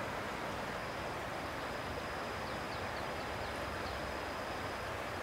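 Flowing floodwater rushing steadily, with a thin steady high tone above it and a few short falling chirps about halfway through.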